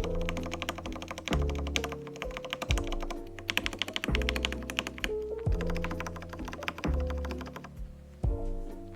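Keys of a Royal Kludge R87 mechanical keyboard pressed in fast succession, a dense run of clacking keystrokes over background music.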